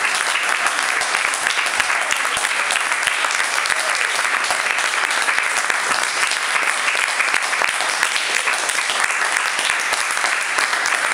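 Audience applauding, many hands clapping steadily without a break.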